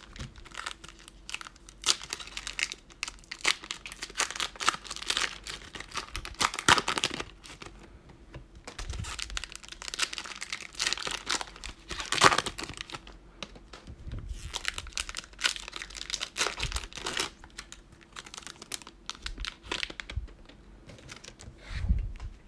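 Plastic wrapper of a 2020 Panini Mosaic football cello pack being torn open and crumpled: a long, irregular run of crinkles and crackles that comes and goes in handfuls.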